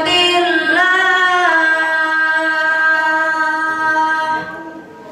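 A boy's voice reciting the Quran in tartil style, drawing out one long note that slides at first and then holds steady before it ends about four and a half seconds in.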